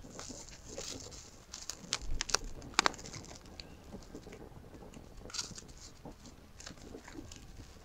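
Plastic cling film crinkling and crackling as hands lift it to roll up a sheet of filled dough, with a cluster of sharp crackles about two to three seconds in.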